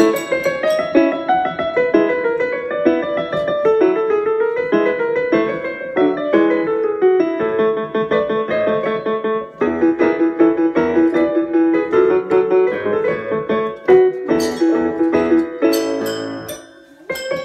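Background piano music playing a flowing melody over chords, with a few sharp clicks near the end.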